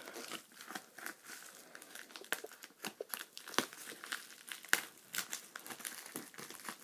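Packaging crinkling and rustling by hand as a parcel is opened and its contents pulled out: a run of irregular crackles and rustles.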